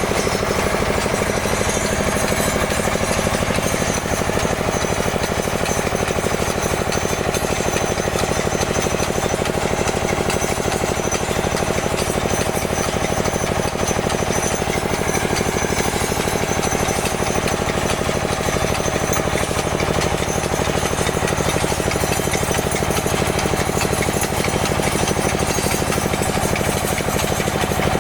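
Small soil-testing drill machine running steadily, with a fast, even rattle.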